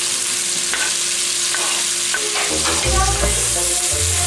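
Butter, onion and broccoli sizzling in a pot with a steady hiss, while diced onion is scraped in off a wooden cutting board and stirred with a wooden spoon, giving light scraping knocks.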